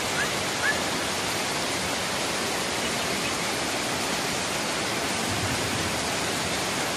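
Floodwater rushing in a steady, loud, unbroken roar of water noise. Two brief high chirps come about half a second apart in the first second.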